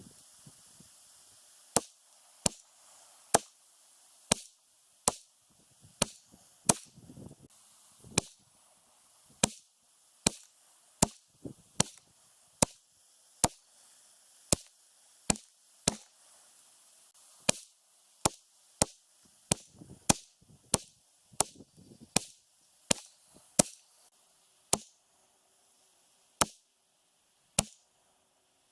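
Ruger 10/22 semi-automatic .22 LR rifle firing about thirty single shots at a steady, unhurried pace, roughly one crack a second, each with a short ring-out. The shots are a little more widely spaced near the end.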